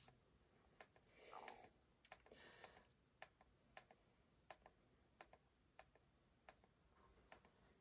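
Faint, evenly spaced clicks, about one every two-thirds of a second: a remote control's button pressed over and over to step the selection down a list. A couple of brief soft rustles come in the first three seconds.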